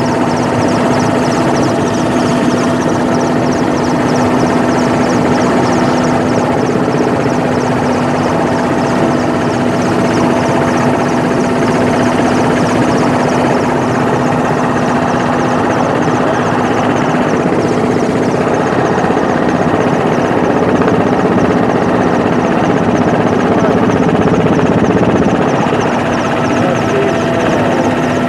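Helicopter in flight, heard from inside the cabin: a loud, steady drone of engines and rotor with a constant hum and a high whine that flutters rapidly.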